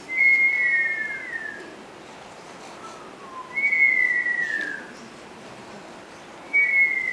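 Three long whistles, each sliding down in pitch from a high note over about a second and a half, coming about three seconds apart. The last one starts near the end.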